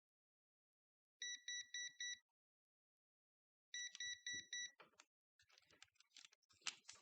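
Digital multimeter beeping: two quick bursts of about five short, high electronic beeps each, a second and a half apart, followed by light clicking and handling of the probes.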